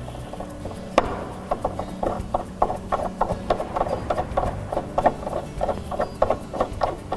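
A drawer knob being twisted by hand onto its bolt against the drawer front. A sharp knock comes about a second in, then a quick run of short rubbing, scraping turns, several a second.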